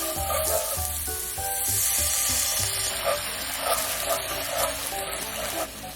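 Food sizzling in a frying pan as it is stirred, with repeated soft scrapes over a steady hiss.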